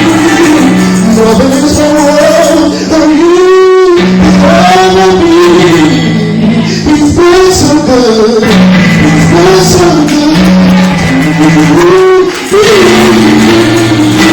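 Solo gospel singing in long, drawn-out wavering notes with vibrato, over steady held accompaniment chords.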